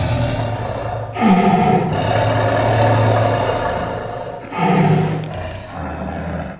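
Tiger roaring twice, about a second in and again near five seconds. Each roar starts loud and falls in pitch.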